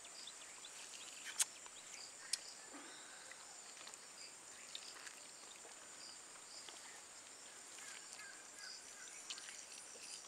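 Faint, steady high-pitched chirping of insects. A sharp click comes about a second and a half in, and another a second later.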